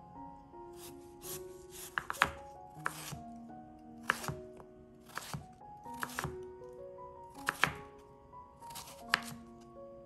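Kitchen knife dicing peeled taro root on a bamboo cutting board: irregular knocks of the blade through the firm root onto the board, many coming in quick pairs. Soft background music of held notes plays under the cutting.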